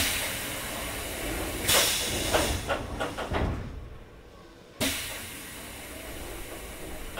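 Pneumatic doors of a Hokuso 7300-series commuter car closing: a sudden hiss of air from the door engines at the start and again about five seconds in, each fading off, with clunks and rattles of the door panels shutting in between.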